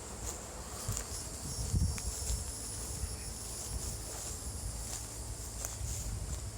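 Steady high-pitched insect chorus, over a low rumble of wind on the microphone, with a few faint ticks and a soft thump about two seconds in.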